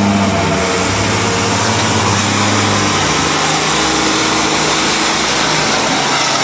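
Truck engine running with a steady low drone; its pitch shifts about three seconds in.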